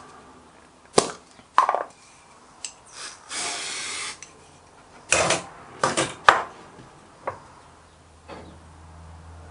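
Metal tools and parts being handled: a string of sharp clanks and knocks with a short rasping scrape in the middle, then a low steady hum starts near the end.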